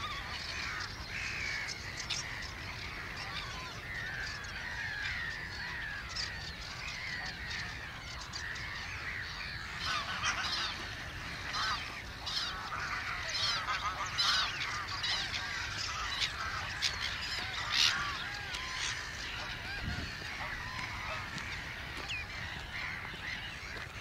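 Waterbirds calling over one another: a steady chatter of many short calls that grows busiest around the middle, over a low steady background rumble.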